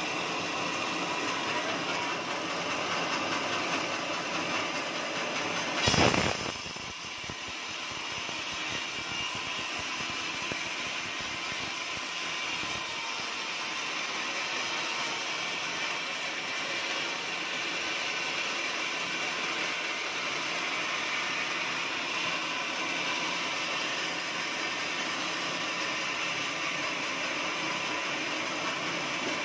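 Band sawmill running, its blade sawing through a teak log: a steady mechanical hum and whine. About six seconds in there is a brief, loud burst of noise.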